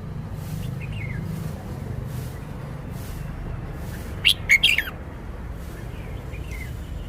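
Red-whiskered bulbul singing one loud, quick phrase of a few notes about four seconds in, with faint short chirps before and after it, over a steady low hum.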